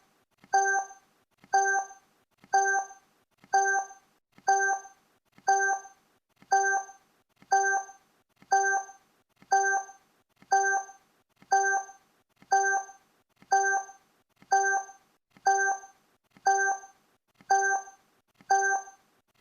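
Countdown timer sound effect: a short pitched blip once a second, steady and evenly spaced, marking each second as it counts down.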